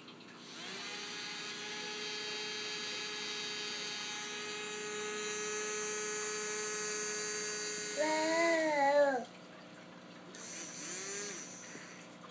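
Small electric motor of a bubble-blowing toy whirring with a steady whine, cutting off about nine seconds in and running again briefly near the end. Just before it first stops, a toddler lets out a short wavering vocal sound, the loudest thing here.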